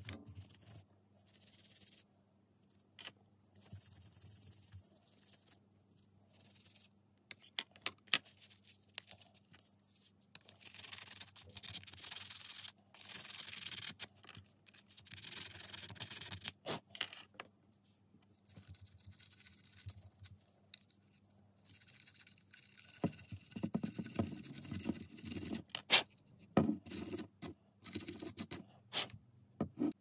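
Small wire brush scrubbing the brass carbon-brush holders of a vacuum cleaner motor in short bursts of scratchy strokes, cleaning grime off the power contacts. Near the end, clicks and knocks of parts being handled.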